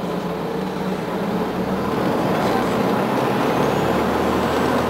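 Interior sound of a Scania CN94UA OmniCity articulated city bus under way: engine running with tyre and road noise. It gets louder about one and a half seconds in and then holds steady.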